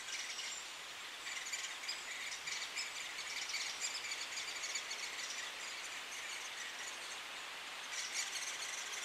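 Forest birds chirping and calling, many short calls overlapping, over a faint steady hiss of woodland background.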